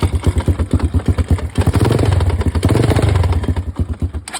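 Kayo K1 pit bike engine running with a knock in the motor. It revs up briefly in the middle and is switched off near the end. The owner has found the centrifugal oil filter and clutch basket in order and doubts it is the valves, so the cause of the knock is unknown.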